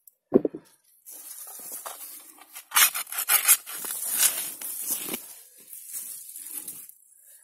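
A shovel digging into garden soil: a thump as the blade strikes about half a second in, then irregular scraping and rustling as earth and potato stalks are levered and turned over.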